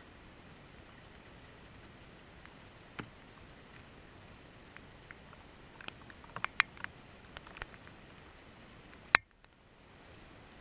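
Light rain, heard as a faint steady hiss, with scattered sharp drip ticks and a cluster of them about six to seven seconds in. A loud sharp click comes about nine seconds in; the hiss then cuts out for about a second and returns.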